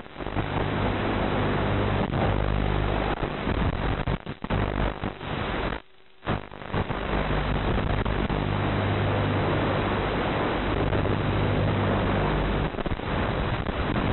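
Rushing, hissy noise with a steady low hum from an FPV quadcopter's analog video-link audio as it flies, recorded on the goggle DVR. It drops out almost completely for a moment about six seconds in, with a few shorter dips.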